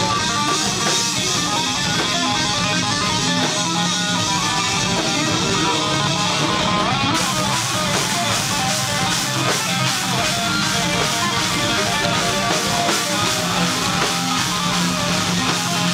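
Live band playing electric guitars over a drum kit, steady and loud.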